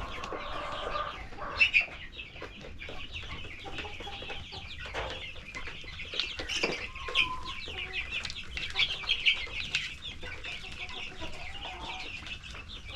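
A brood of young chicks peeping continuously, many short high calls overlapping, with a few light knocks among them.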